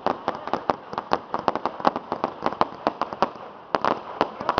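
Fireworks display going off in a fast, irregular barrage of sharp firecracker bangs and crackles, several a second, without a break.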